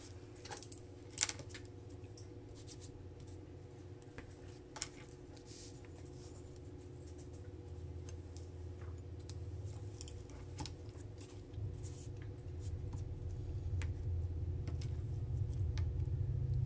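Small paper-crafting handling sounds: metal tweezers placing punched paper circles onto a cardstock card, with light scratches and a few sharp clicks. A low hum underneath grows louder in the last few seconds.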